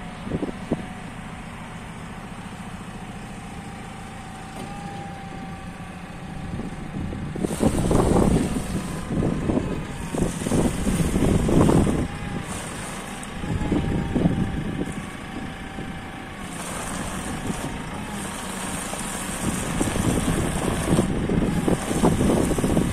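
Telehandler's diesel engine idling steadily. From about seven seconds in, wind gusts buffet the microphone again and again, louder than the engine.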